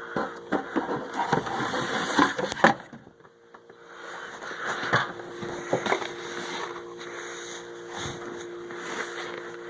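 Cardboard box and packaging being handled and opened: rustling with sharp clicks and knocks, busiest in the first few seconds with a loud knock about a quarter of the way in, then lighter occasional handling.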